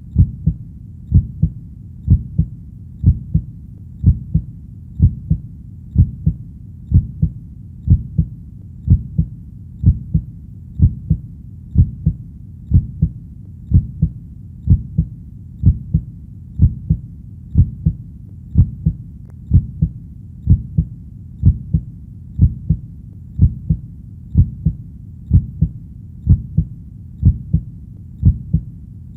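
Heartbeat: a steady, even rhythm of low double thumps (lub-dub), about one beat a second.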